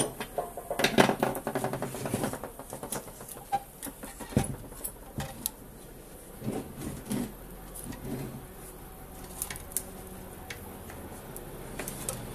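Handling noise from hands working on a household water filter unit: rustling with light knocks and clicks against its sheet-metal top plate, busiest in the first couple of seconds, then scattered clicks.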